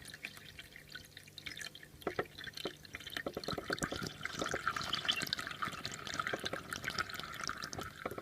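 Water poured from a jug into a fridge's door water-dispenser tank: scattered drips and splashes at first, then a steady pour from about three seconds in.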